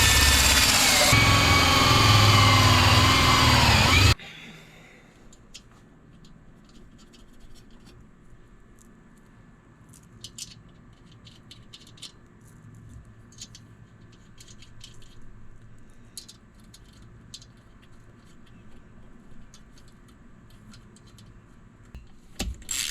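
Power drill running hard as it bores a hole, its motor pitch sagging and shifting under load, then stopping sharply about four seconds in. After that come faint scattered clicks and taps, and a quick burst of clicking near the end.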